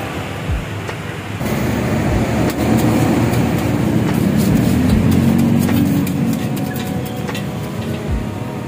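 Street traffic: a motor vehicle passing close by, swelling over a few seconds and easing off, over a steady traffic hum. Light metal clicks of spatulas on a steel griddle sound now and then, more often near the end.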